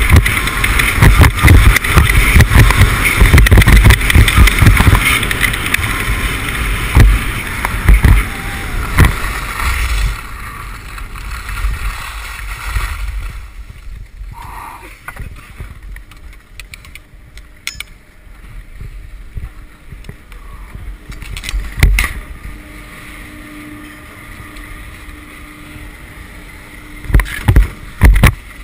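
Wind buffeting an action camera's microphone and skis scraping over packed snow during a fast downhill run. The noise dies away after about ten seconds as the skier slows to a stop, with a short beep about fourteen seconds in and a few loud knocks near the end.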